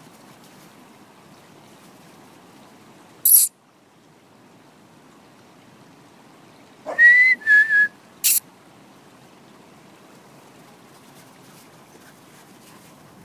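A person whistling to call dogs: about seven seconds in, a rising whistle, then a held high note that breaks into a few short pulses. There is a short sharp hiss about three seconds in and another just after the whistle, over a steady outdoor hiss.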